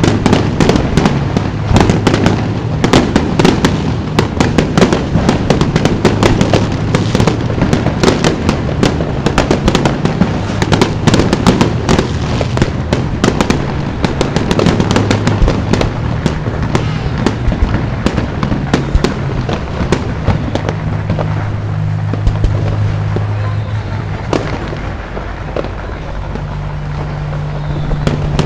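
Aerial fireworks display: a dense, continuous barrage of bangs and crackling shell bursts that thins out for a few seconds near the end, over a low steady hum.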